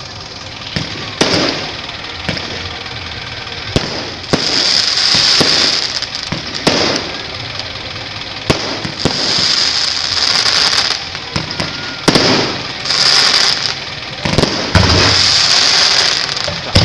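Aerial fireworks going off: a string of sharp bangs at uneven intervals, with several stretches of high hissing crackle lasting a second or two between them.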